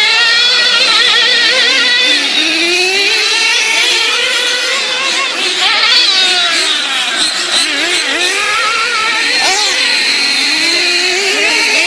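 Several racing engines running at once, their pitches rising and falling and overlapping as they rev.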